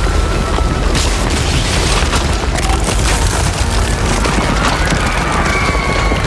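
Cinematic earthquake sound effects: a heavy, continuous deep rumble with repeated crashes and cracks as a concrete dam breaks up.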